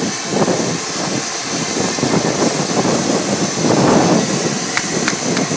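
Jet turbine running by the parked business jet: a steady high whine over a loud rushing noise that swells briefly about four seconds in.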